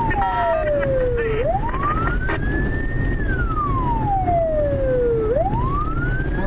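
Police car siren wailing in slow cycles, each a quick rise followed by a long, slow fall in pitch, over the steady low rumble of cars driving at speed.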